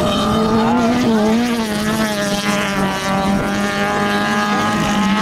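Autocross race car engines running hard, their pitch rising and falling as the cars accelerate and lift off around the dirt track.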